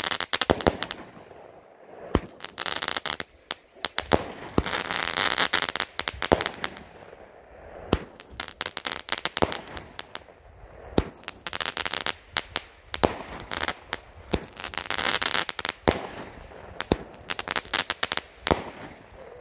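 A consumer firework cake (Big Value Fireworks' Powder Keg) firing shot after shot, about every two to three seconds. Each shot goes off with a sharp bang and is followed by a second or two of dense crackling from its crackling tails and crackling stars.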